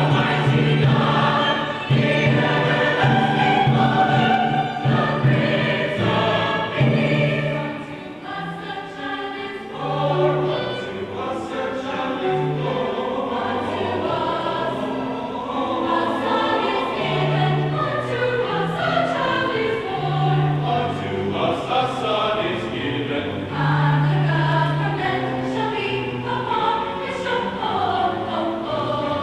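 A choir singing in harmony, several voice parts moving together, with a brief dip in loudness about eight seconds in.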